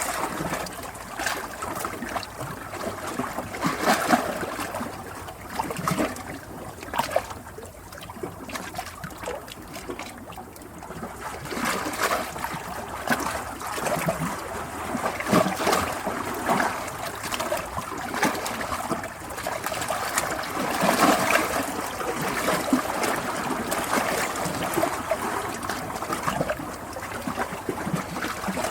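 Water flowing and trickling, with constant uneven splashing and gurgling that swells and eases irregularly.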